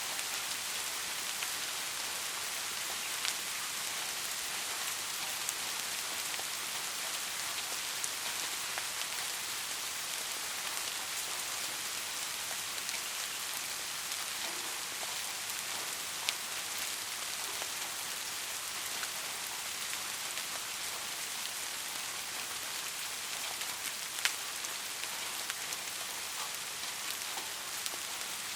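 Steady rain falling, a dense even hiss with scattered sharp drop ticks, the clearest a little after 3 s, near 16 s and near 24 s.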